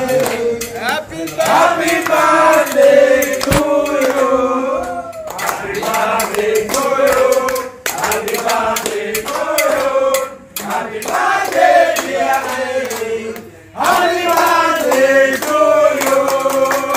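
A group of men singing a birthday song together, with hand clapping. The singing breaks off briefly several times.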